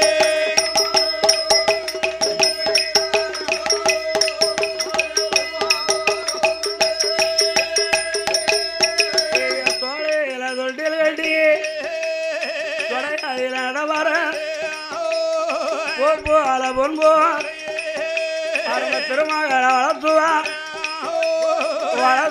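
Villupattu folk ensemble playing an instrumental passage. For about ten seconds fast, even percussion strokes run over a steady drone. Then the percussion drops out and a wavering melody carries on over the drone.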